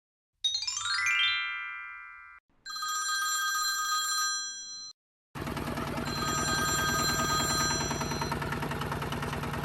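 Electronic ringing sound effects cut in one after another: first a rising chime sweep that fades, then a steady ringing tone, then a longer buzzing electronic ring, with abrupt dead silence between them.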